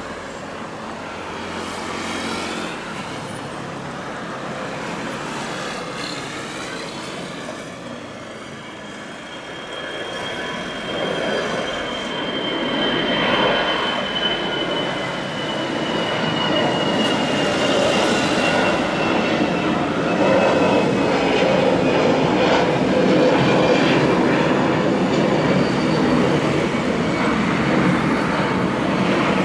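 Jet engines of a Citilink Airbus A320 at takeoff thrust as the airliner accelerates down the runway and climbs out. The roar grows louder through the first half and stays loud, with a high fan whine that slowly falls in pitch.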